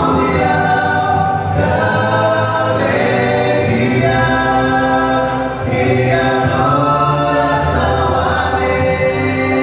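Male vocal quartet singing a gospel song a cappella in close harmony through microphones, holding long chords with brief breaks between phrases.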